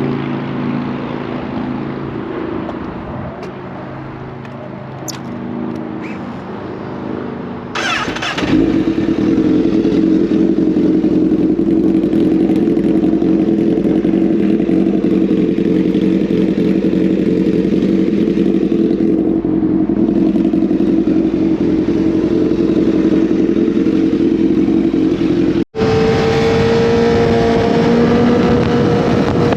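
Honda CBR1000RR sportbike's inline-four engine heard from the rider's camera: quieter and uneven at first, then about eight seconds in it suddenly gets loud and holds a steady high-revving note with wind rushing over the microphone. Near the end the sound drops out for an instant and the engine carries on at a steady, higher pitch.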